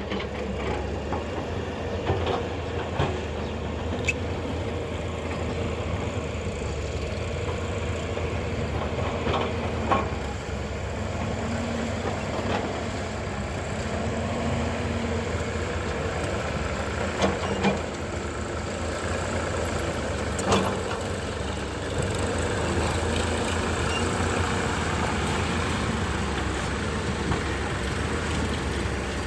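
Hyundai Robex 210-7 excavator's diesel engine running steadily under load, its note swelling briefly at times, with a few sharp knocks and clanks.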